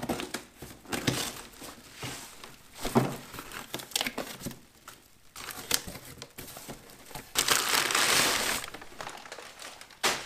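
Cardboard box being unpacked by hand: flaps scraping open, crumpled packing paper rustling as it is pulled out, and plastic-wrapped parts crinkling. A series of short rustles, with one longer, louder stretch of crumpling about three quarters of the way through.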